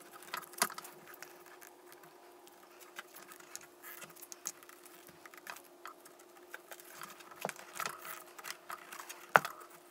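Small clicks and rustles of gloved hands working heat-shrink tubing over a wire harness, with one sharper tap near the end. A faint steady hum underneath.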